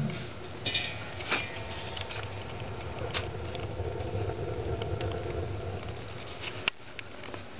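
Wood fire burning in a rocket mass heater's open feed chamber: a steady low rumble of the draft drawing air down into the fire, with a few sharp crackles. The strong pull is why no smoke comes back out of the opened lid.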